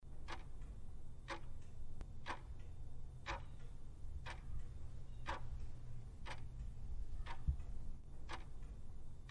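Clock-ticking sound effect counting down the seconds, one sharp tick about once a second over a faint low hum: a countdown timer running for the answer time.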